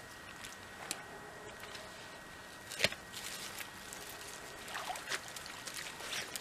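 Shallow creek trickling, with scattered sharp snaps and knocks from someone working in the stream; the loudest knock comes about three seconds in.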